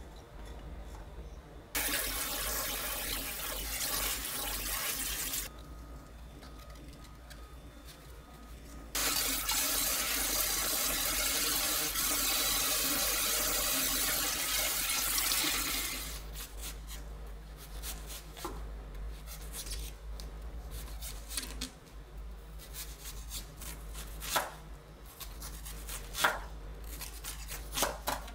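Kitchen tap running into a stainless steel sink, spraying over perilla leaves in a mesh strainer. It runs twice for a few seconds, about 2 s in and again about 9 s in. After that come light rustles and clicks of wet leaves being handled, with a few sharp knocks near the end.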